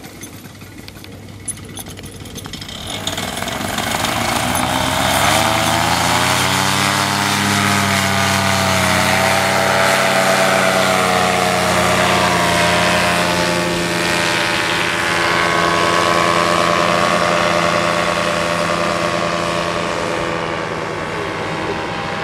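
Paramotor engine and propeller throttling up from low revs about three seconds in, rising in pitch over several seconds to full takeoff power. It then runs loud and steady, its pitch wavering a little and the level easing slightly near the end.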